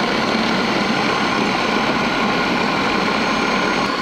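Food processor running on high speed with a steady motor hum and whine, puréeing a liquid chicken liver mixture until smooth.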